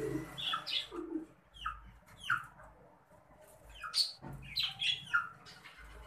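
Budgerigars chirping: short, sharp chirps that sweep quickly in pitch, coming irregularly and bunching into a busier run of chatter a little past the middle.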